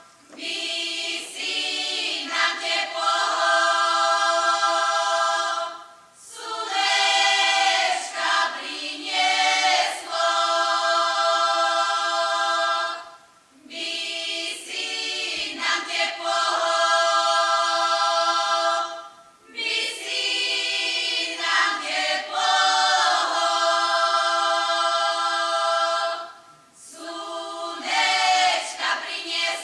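Women's folk choir singing a Slovak folk song a cappella in several parts, holding long chords. The phrases last about six or seven seconds, with short breath pauses between them.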